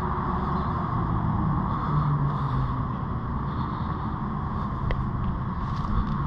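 Steady background rumble of road traffic, with a faint click about five seconds in.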